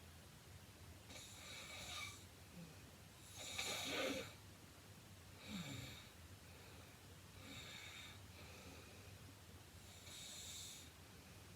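A heavy-set woman snoring in her sleep: about five snoring breaths roughly two seconds apart, the loudest about four seconds in.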